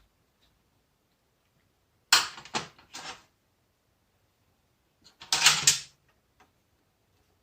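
Two short spells of clattering and scraping, a few quick knocks about two seconds in and another cluster about five seconds in: the fuel tank selector valve and tools being handled while it is taken apart.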